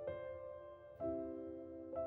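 Slow background piano music, a new soft chord struck about once a second and left to ring.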